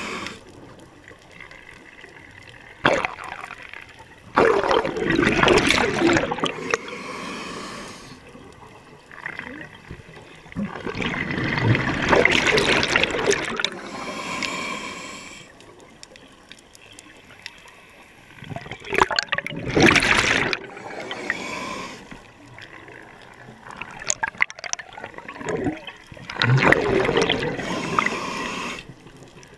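Scuba diver's regulator breathing underwater: bursts of exhaled bubbles gurgling about every seven seconds, with quieter inhalations between.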